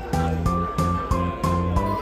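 Background music with a steady beat of about three strokes a second, a bass line and a melody of held notes.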